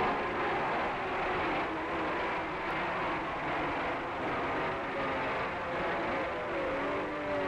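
Racing motorcycle engines running hard, their pitch sliding up and down as the bikes pass and change speed, over a steady rushing noise.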